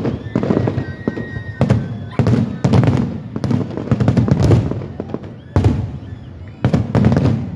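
Aerial fireworks shells bursting in a rapid barrage, about a dozen loud bangs in quick clusters, each with a booming, echoing tail.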